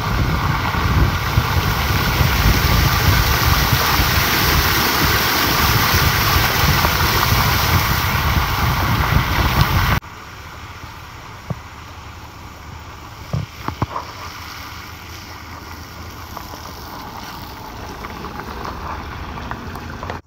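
Loud hiss of a car's tyres running on a wet road, mixed with wind rushing past the microphone. It cuts off abruptly about halfway, leaving a much quieter steady hiss with a few soft knocks.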